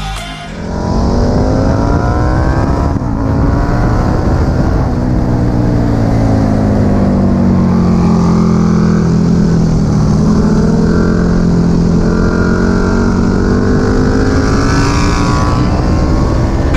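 KTM naked motorcycle's engine heard on board at track speed: the pitch climbs under acceleration, breaks briefly at a shift about three seconds in, then falls slowly as the bike slows for a corner, and climbs again as it accelerates out near the end.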